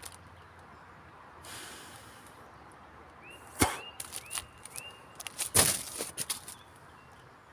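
Crackling and rustling of a paper food wrapper being handled during eating, loudest in two sharp crackles about three and a half and five and a half seconds in. A bird gives a few short chirps just over three seconds in.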